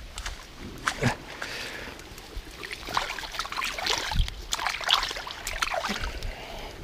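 Water splashing and trickling in a series of irregular splashes at the lake's edge, as if stirred by hand or by a fish.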